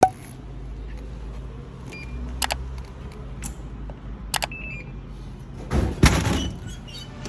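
A vehicle's steady low rumble, with a few sharp clicks and a louder clatter about six seconds in.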